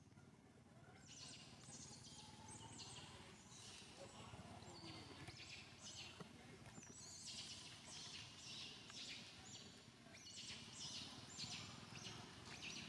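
Faint outdoor ambience: high-pitched chirping in runs of short, quickly repeated bursts, with a low background hum of noise beneath.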